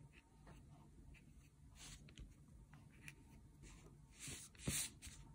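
Faint swishes of a flat paintbrush laying acrylic paint strokes on paper, with two louder strokes near the end.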